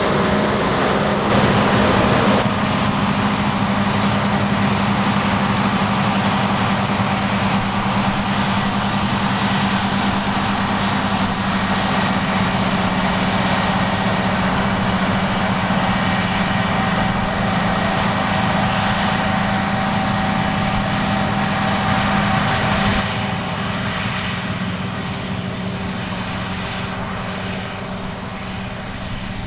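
Heavy harvest machinery running steadily, a loud diesel engine drone with a constant hum. It drops in level about 23 seconds in and keeps fading toward the end.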